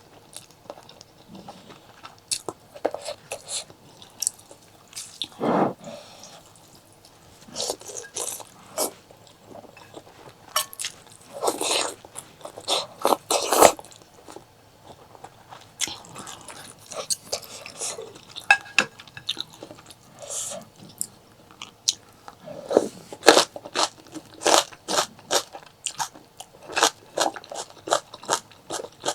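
A person chewing and biting food close to the microphone: fast irregular mouth clicks with a few longer, louder bursts.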